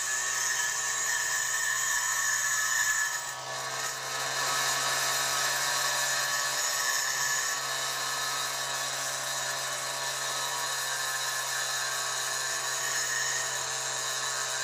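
High-speed electric rotary tool running with a steady whine, as used to grind the ports of a two-stroke cylinder; its pitch and level dip briefly about three and a half seconds in.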